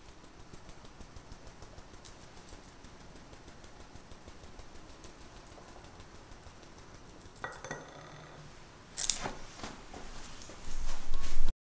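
Small fine-mesh sieve tapped lightly, a faint, rapid ticking, as powdered sugar is dusted through it. In the last few seconds come a few sharper clinks and then a louder kitchen clatter that stops abruptly.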